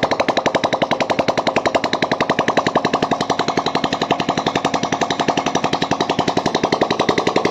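Bajaj CT100's single-cylinder four-stroke engine running steadily with a fast, even exhaust beat, just started after a top-end rebuild with a new cylinder block and head fitted and the timing chain adjusted.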